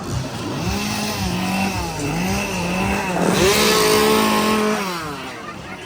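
Chainsaw engine revving up and down several times, with a sharp rise to a high rev about three seconds in that holds for a moment and then falls away.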